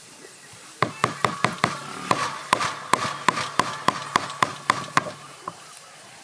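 Cleaver blade striking through a hard-rinded Feroniella lucida fruit into a wooden chopping block: a quick run of sharp knocks, about four a second, stopping about five seconds in.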